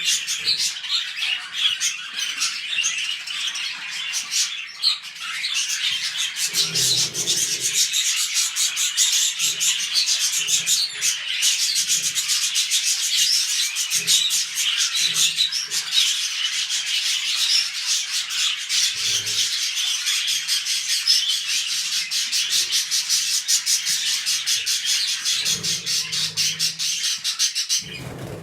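Pet budgerigars warbling and chattering nonstop, a dense stream of fast high-pitched ticks and twitters that stops suddenly near the end.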